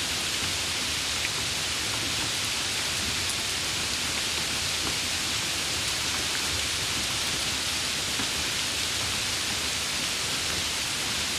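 Steady, even hiss of rain falling, with no breaks or single loud drops standing out.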